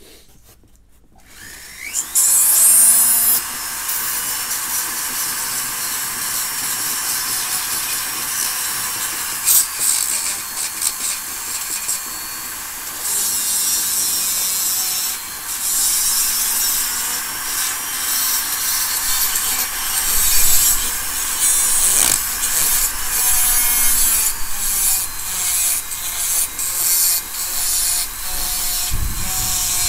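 Foredom flex-shaft rotary carver with a coarse-grit green Saburrtooth bit grinding into a wooden 2x4 bear carving. It starts about two seconds in with a short rising whine, then grinds steadily, its loudness rising and falling as the bit is worked over the wood.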